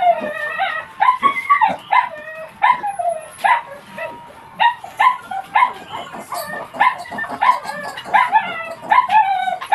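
Piglet squealing in distress while held upside down by its hind legs during castration: short, high, repeated squeals about twice a second, each bending up and down in pitch.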